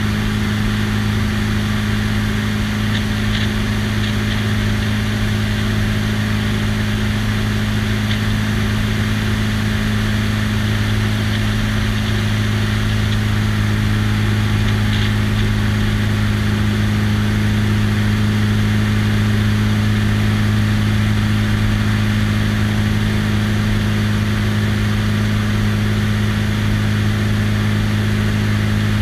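Light biplane's piston engine and propeller droning steadily in cruising flight, with wind rushing over a wing-mounted microphone.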